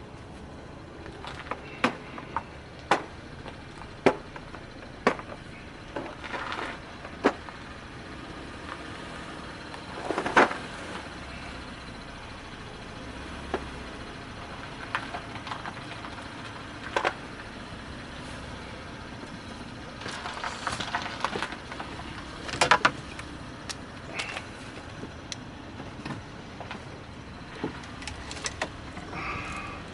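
Scattered sharp metallic clicks and knocks of hand tools being worked on a car during a starter replacement, over a steady background hum.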